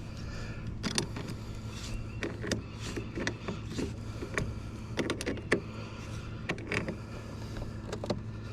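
Irregular metallic clicks and clinks of hand tools working on the truck, likely the battery cable being refastened, over a steady low hum.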